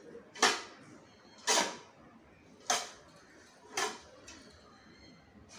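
Short-handled metal hoe chopping and scraping into a pile of garden soil mix, four strokes about a second apart.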